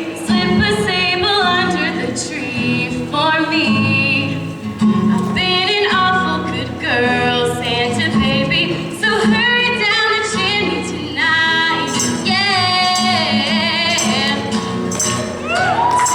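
Live song: singing with vibrato over instrumental accompaniment and rhythmic percussion.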